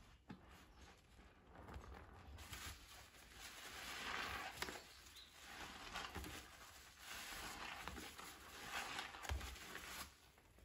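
Foam sponge being squeezed in a bowl of thick soapy water: wet squelching with suds fizzing and crackling. It swells twice, then falls off near the end.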